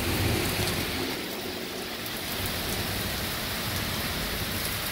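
Heavy rain pouring down steadily on pavement, trees and parked cars during a thunderstorm.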